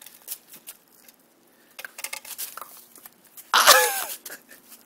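Faint scattered clicks and taps, then, about three and a half seconds in, one short, loud cough-like snort with a wavering pitch.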